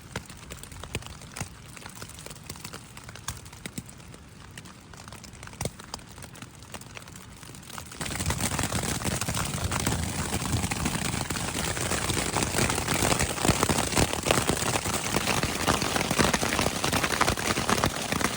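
Hail hitting tent fabric: scattered sharp ticks at first, then about eight seconds in a sudden change to a dense, much louder pelting.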